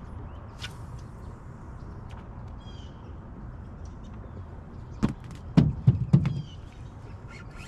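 Birds chirping in short calls over a steady low rumble, with a quick cluster of knocks and thumps about five to six seconds in that stand out as the loudest sounds.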